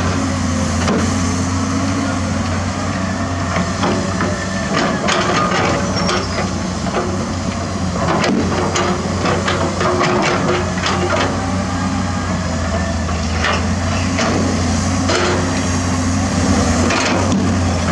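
Heavy construction machinery working: a diesel engine runs steadily under many sharp metallic clanks and knocks, which come in clusters.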